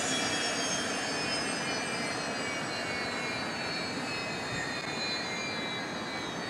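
Beechcraft 1900C's twin Pratt & Whitney PT6A turboprop engines running at taxi power: a steady propeller and turbine noise with a high whine that sinks slowly in pitch.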